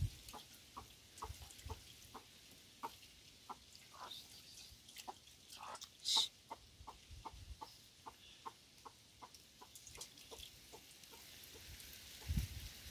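A chicken clucking quietly, a long run of short clucks a few a second, with one sharper, higher call about halfway through.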